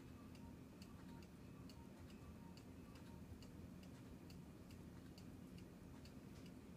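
Engstler miniature cuckoo clock ticking, driven by its swinging-girl pendulum. The ticks are faint, quick and even, a little over two a second.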